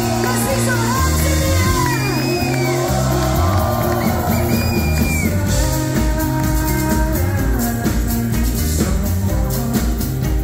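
Live band music: a stepping synth bass line with singing over it, and a regular drum beat in the second half.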